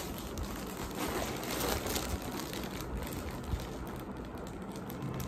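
Plastic packaging crinkling as a wrapped food packet is handled and turned over, with many small crackles.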